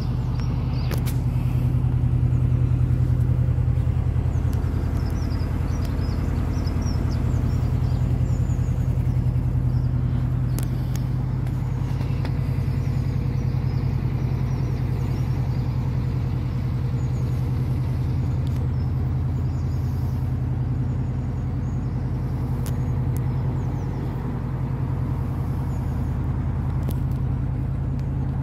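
Canal boat's inboard engine running steadily under way, a constant low hum.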